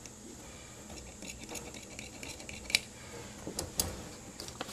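Large tailor's shears snipping through suit-trouser fabric on a cutting table: a soft scratchy cutting sound, with a few sharp clicks and light knocks as the shears and a ruler are handled. The two loudest clicks come near the middle and near the end.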